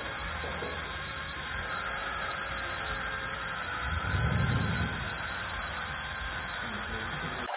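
Steady hiss of a dental dry field system's suction drawing air through the tubing on the cheek retractor, with a brief low rumble about four seconds in.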